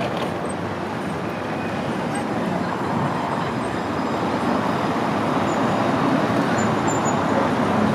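Alstom Citadis trams at a street stop: one pulls away close by while another approaches, their running noise growing steadily louder. People talk on the platform.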